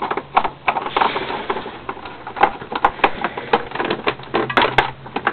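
Irregular clicks and light taps of a screwdriver and screw working against the plastic housing of a Hoover upright vacuum being put back together.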